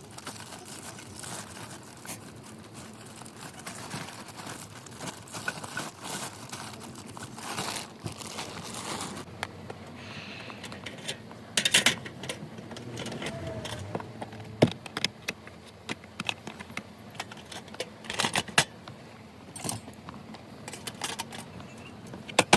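Rustling, crinkling and clattering as cooking gear and bags are handled and packed away in the tight space of a car. The dense rustle thins out about nine seconds in to scattered clicks and a few sharp knocks.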